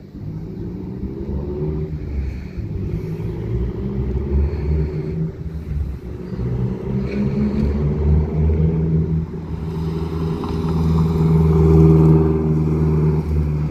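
Mazdaspeed 3 with a modified exhaust accelerating through its gears on a drive-by: the turbocharged four-cylinder's note climbs and drops back at each shift, growing louder toward the end as it nears. This is a roadside exhaust noise test, peaking near 79 dB on the meter at 50 feet.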